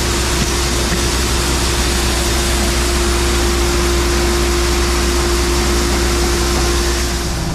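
Heavy farm machinery engine running steadily under load, a dense rushing hiss over a deep hum with a steady whine held throughout.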